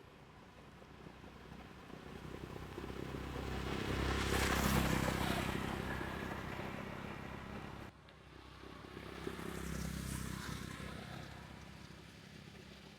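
Motor vehicles passing on a road. One engine swells up and fades away with a peak about four to five seconds in, the sound cuts off suddenly near eight seconds, and a second pass rises and fades around ten seconds.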